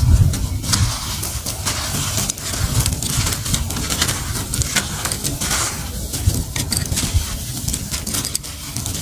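A dry, gritty grey lump crushed and crumbled in bare hands: a continuous irregular crackle and sandy hiss of grains breaking and pouring down, over a low rumble of handling.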